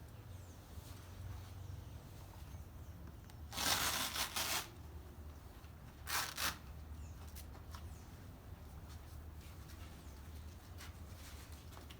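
Blood pressure cuff being handled during the measurement: two short bursts of noise, the first about four seconds in and the second about six seconds in, over a low steady hum.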